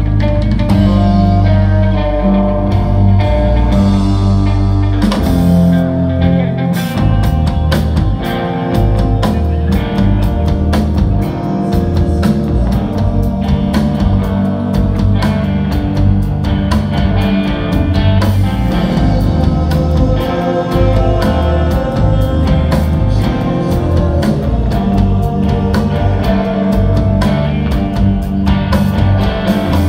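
Live rock band playing with electric guitars and bass. The opening seconds are sustained notes, then the drums and cymbals come in about six seconds in and the full band plays on.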